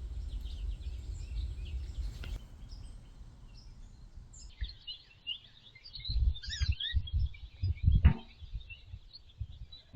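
Small backyard birds chirping and twittering, many short high calls overlapping, busiest in the second half. Underneath runs a low rumble with uneven bumps, strongest in the second half.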